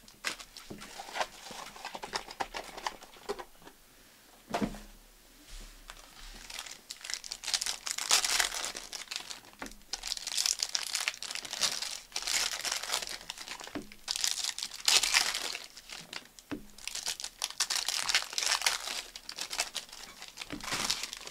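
Plastic trading-card pack wrappers crinkling and tearing as packs are ripped open and the cards handled, in irregular bursts that grow louder about a third of the way in.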